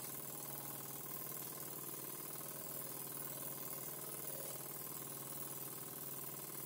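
Jensen 35 1/2 toy live-steam engine running steadily, driving a model bandsaw by its belt, with a fast, even mechanical beat.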